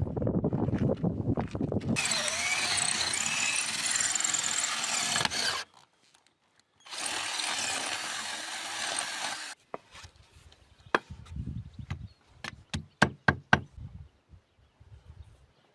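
A power tool running on wood in two runs of a few seconds each, starting and stopping abruptly, after a low rumbling noise. A string of sharp knocks follows.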